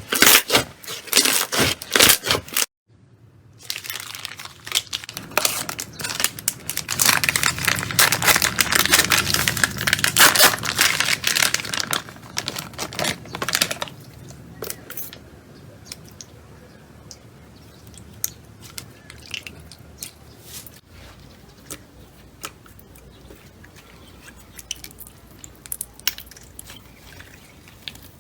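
Slime being pressed and worked by hand: dense crackling and popping, with a short break about three seconds in. It gets louder toward the middle, then thins to faint scattered clicks in the second half.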